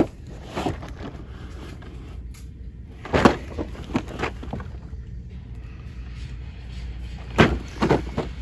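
Cardboard Hot Wheels 20-pack boxes being slid and bumped against one another on a shelf by hand: a handful of short scrapes and knocks, the loudest about three seconds in, over a steady low background hum.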